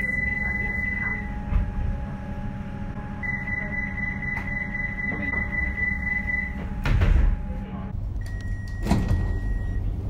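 Melbourne Comeng electric train's door-closing warning: a high tone with fast beeping sounds twice, then the doors shut with a thud about seven seconds in. At about eight seconds an X'Trapolis train's door warning tone follows, with a door thud partway through. A steady low hum runs underneath.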